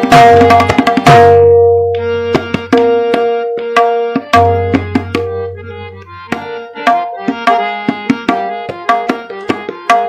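Tabla solo: the dayan and bayan struck in quick patterns, with deep ringing bayan strokes, over a harmonium playing a repeating lehra melody. The opening second is a loud, dense flurry of strokes, and from about two seconds in the playing is lighter and sparser.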